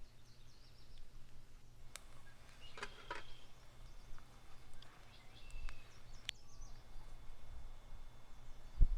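Outdoor ambience: a steady low rumble with scattered short bird chirps, a couple of sharp clicks, and a low thump right at the end.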